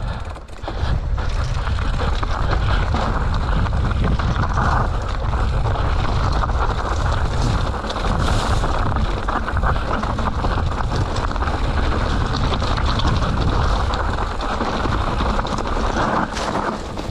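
Mountain bike descending a rough trail at speed: steady wind buffeting on the camera microphone over the rumble and rattle of tyres and frame.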